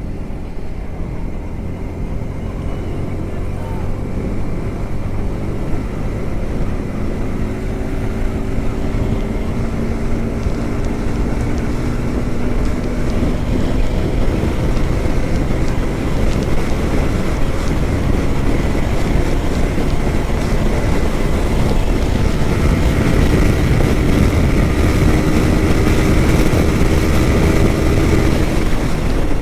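Yamaha R15M motorcycle's single-cylinder engine pulling at speed, its note rising slowly as the bike gathers speed, under steady wind rush on the microphone.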